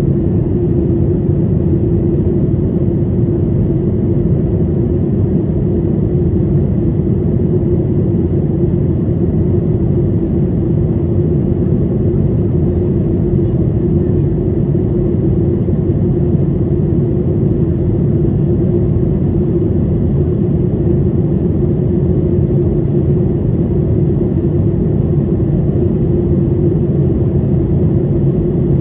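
Steady cabin drone of a Boeing 737-800 in flight, heard from a window seat over the wing: the CFM56-7B turbofan engines and the rush of air over the fuselage make a deep, even noise with a steady hum running through it.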